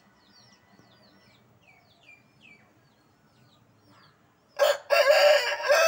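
A rooster crows loudly near the end: a short first note, a brief break, then a long drawn-out call. Before it, small birds chirp faintly over and over.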